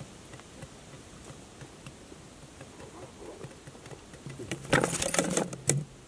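Quail wings flapping in a short, loud, clattering flurry about four and a half seconds in, after a stretch of faint scattered ticks.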